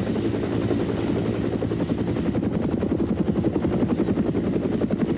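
Sikorsky HRS (H-19) helicopter in flight: a steady, rapid chop of the rotor blades over the running engine.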